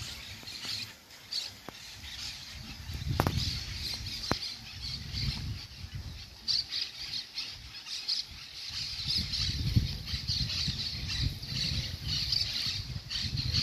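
Spinning fishing reel being cranked to retrieve the line, a pulsing raspy whir, over a low irregular rumble. Two sharp clicks come about three and four seconds in.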